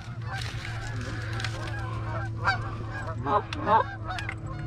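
Goose honks and clucks: short calls in quick runs about two and a half seconds in and again near the end, over a steady low hum.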